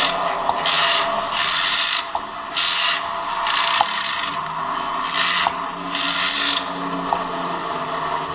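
Horror sound-effect mix: a low, steady drone with repeated harsh noisy bursts, each about half a second long, coming roughly once a second until near the end, and a few sharp ticks.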